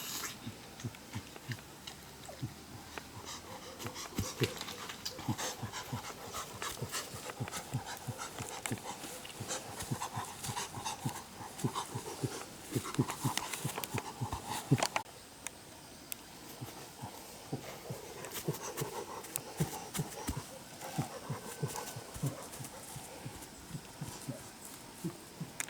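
A dog panting close by, with a busy run of quick clicks and knocks that is loudest in the middle and eases off about halfway through.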